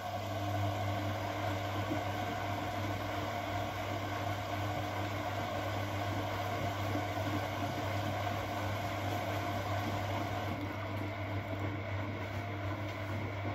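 Siemens Siwamat Perfecta SL washing machine running steadily on a delicates cycle, a low hum with a steady higher tone over it.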